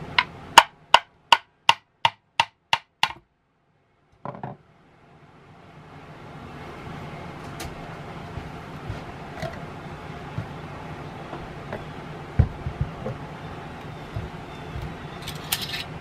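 A run of about nine sharp, evenly spaced metal taps, roughly three a second, as the Kohler K181 engine block is worked loose from its oil pan. After a short break, a few scattered knocks and clunks over a faint low hum as the block is lifted off and handled.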